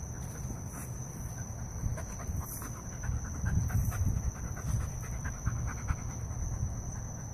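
Wolfdog and pit bull puppy play-wrestling, with dog panting and short rustling strokes throughout, over a steady high-pitched tone.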